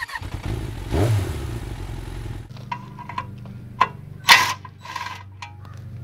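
A short channel-logo sound effect with a rising, revving sweep, cut off abruptly about two and a half seconds in. Then a steady low hum with scattered clicks and one louder clack as hand tools are picked up off gravel.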